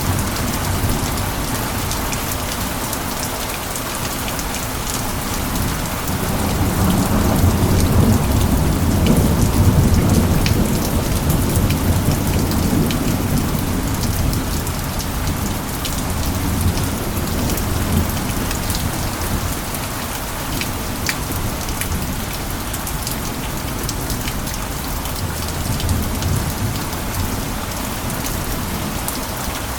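Steady heavy rain pattering on surfaces, with scattered individual drops. A long, low roll of thunder swells in a few seconds in and fades away after about eight seconds.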